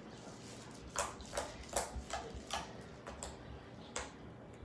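A series of sharp, irregular taps or clicks, about seven over three seconds, starting about a second in.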